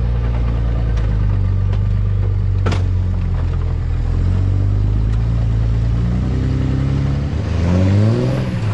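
A pickup truck engine running steadily at low revs while pulling, then revving up briefly near the end before dropping back. There are a few sharp clanks, the loudest about three seconds in.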